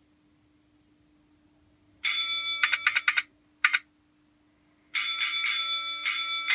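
Recorded signal box block bell ringing bell codes, played through a small novelty-card sound module: a first run of quick strokes about two seconds in, a single stroke soon after, and another run of strokes about three seconds later.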